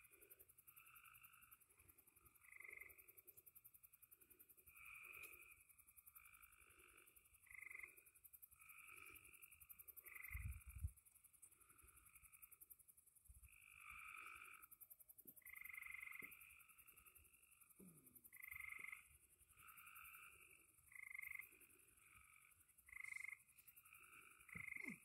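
Frogs calling faintly at night: short calls, each under a second, repeating every second or so, some overlapping. A single low thump sounds about ten seconds in.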